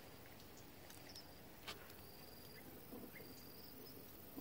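Near-silent rural outdoor ambience: faint short high-pitched chirps about once a second over a soft hiss, with a few light clicks.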